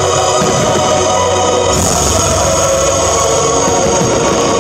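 Loud music playing at a steady level.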